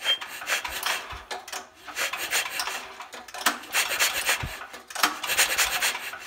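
Recoil pull-starter rope drawn out about four times, each pull a rasping whir of about a second, turning over the DeWalt generator's single-cylinder overhead-valve engine. The spark plug is out, so the engine spins freely without compression. It is being turned over to settle the freshly adjusted valves before their clearance is checked again.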